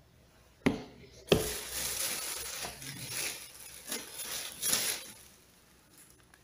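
Two sharp knocks of plastic food containers handled on a desk, then a few seconds of plastic packaging rustling and crinkling in uneven surges that die away near the end.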